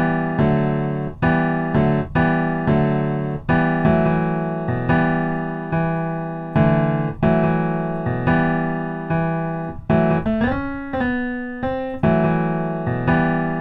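Piano chords played over and over in a slow drill-style progression, each chord struck and left to fade before the next. For a moment about ten seconds in, the notes bend and waver in pitch before the plain chords return.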